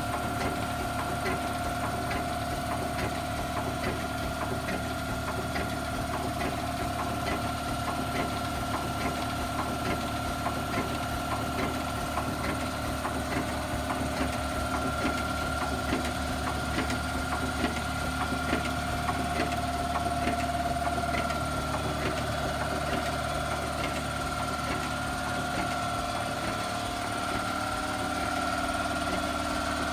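6-inch-scale Burrell Gold Medal Tractor's compound engine running on compressed air with a steady, even beat, alongside a steady high whine.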